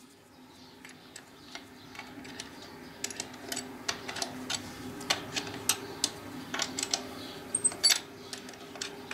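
Wrench turning a motorcycle's rear chain adjuster bolt, making a run of light metallic clicks, a few per second, over a steady low hum.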